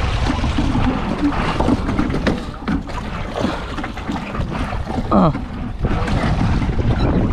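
Wind rumbling on the microphone over choppy lake water, with water splashing around a small rowing boat.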